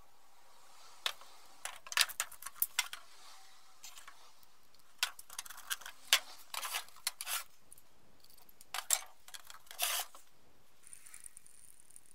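Clicks, taps and clunks of metal paint tins and a plastic mixing cup being handled and set down while clear lacquer and hardener are measured out, in three short bursts of handling noise.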